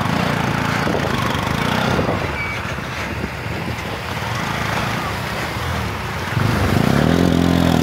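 Bajaj Pulsar motorcycle engine running under way on a rough gravel road. About six seconds in it gets louder, its pitch rising and then falling as the rider opens the throttle.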